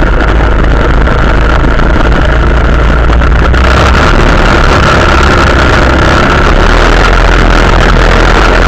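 Quad bike (ATV) engine running steadily at speed, loud and close to the microphone.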